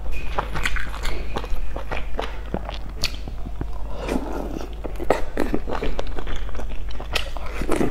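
Close-up eating sounds: chopsticks clicking and scraping against a stainless steel bowl as food is picked up, then a bite with wet chewing and slurping about four seconds in and again near the end.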